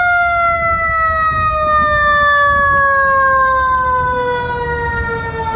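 Fire engine siren: its pitch has just jumped up, then falls slowly and steadily for about five seconds before jumping up again at the end.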